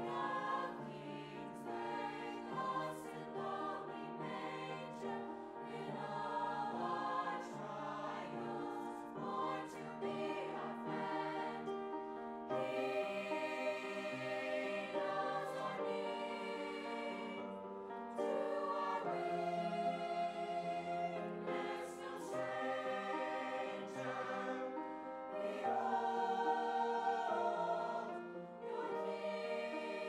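Mixed choir of teenage male and female voices singing a sustained choral piece, with changing held chords.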